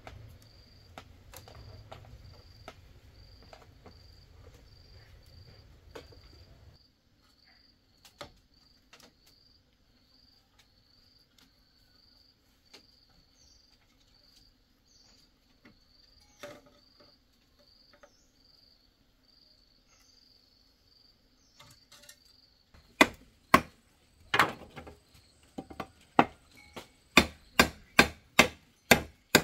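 An insect chirps in short, high, evenly repeated pulses, about two a second. In the last quarter, loud sharp tool blows on wood begin, first a few spaced strikes, then a steady run of about two a second.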